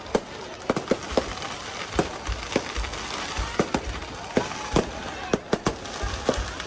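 Fireworks display: a dense barrage of irregular bangs, several a second, some with deep thumps, over continuous crackling.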